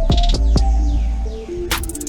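Electronic background music: a synth melody stepping between held notes over deep bass and regular drum hits, with a falling sweep in the middle.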